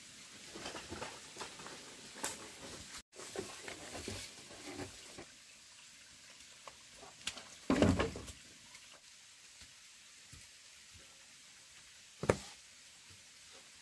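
Bamboo poles knocking and clattering as they are handled and laid across a log frame: scattered light knocks at first, a heavier thump about eight seconds in, and a sharp knock near the end.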